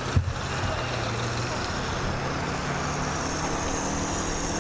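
Engine and tracks of a Type 75 armored dozer, a steady low drone as it drives across dirt toward the stands, its note rising a little near the end. There is a short knock just after the start.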